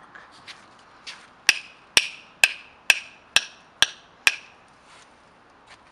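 Specialized carbon fiber bicycle crank arm struck hard against a rock, seven sharp knocks about two a second, each with a short ring. The carbon takes the blows without breaking.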